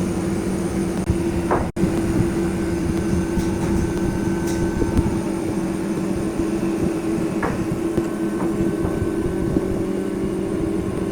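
Wood lathe running with a steady motor hum and rough noise over it, cutting out for an instant just under two seconds in.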